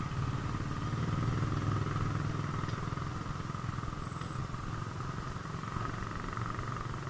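Small motorcycle engine running at low speed while riding, a steady rough low rumble that swells slightly a second or two in.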